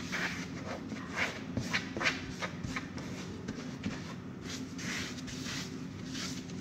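Gloved hands scraping and rustling a flexible plastic container as its sauce is tipped and scraped out: a run of short, irregular rustling and scraping strokes.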